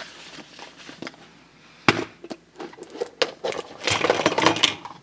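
Large hollow plastic toy egg being handled and pried open: a sharp click about two seconds in, a few more clicks, then a burst of plastic clatter and rustling near the end as the halves come apart.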